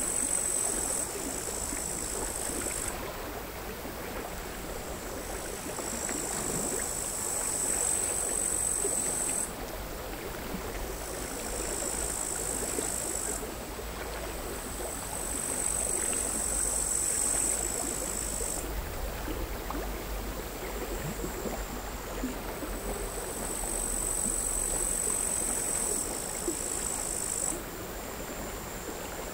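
Crickets singing a high, steady buzz in bouts of a few seconds that switch on and off, over the quiet, irregular lapping of small sea waves.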